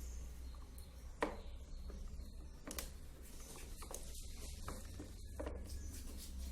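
Faint scattered clicks and taps as multimeter probes are handled against a toy car's fuse during a continuity check, over a steady low hum.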